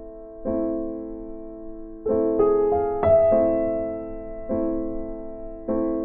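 Background music: slow piano chords, each struck and left to ring and fade, with a new chord every one to two seconds.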